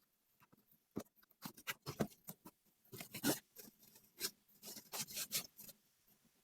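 Product packaging being handled and opened by hand: a quick run of rustles, scrapes and clicks that starts about a second in and stops near the end.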